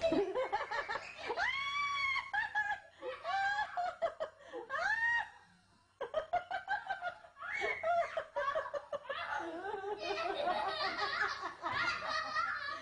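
Laughter with high-pitched squeals and giggles from a baby, in short arching cries at first, then denser laughing. The sound breaks off briefly about halfway through and starts again abruptly.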